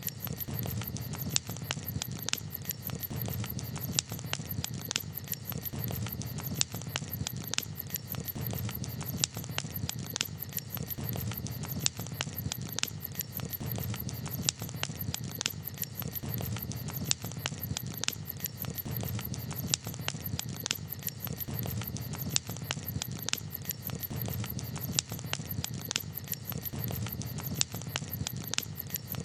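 Campfire crackling: frequent irregular sharp pops and snaps over a steady low rumble.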